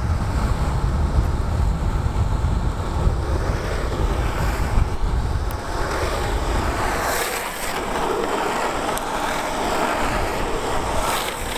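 Wind buffeting the microphone as a downhill skateboard rolls fast on smooth asphalt. About six seconds in the low rumble falls away and the hiss of urethane wheels on the pavement comes forward, swelling louder twice.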